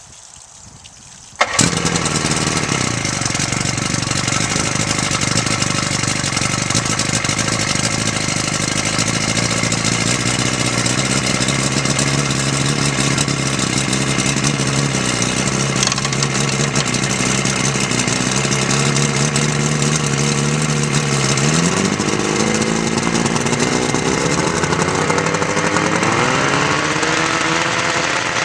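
Two-stroke outboard motor starting suddenly about a second and a half in, then idling steadily. In the last third it is revved up several times, its pitch rising and falling.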